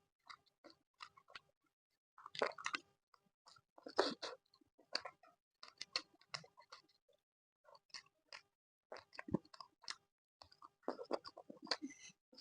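Close-miked chewing of laddu peethi, fried lentil fritters with chutney: irregular bursts of wet clicks and smacks from the mouth, separated by short pauses.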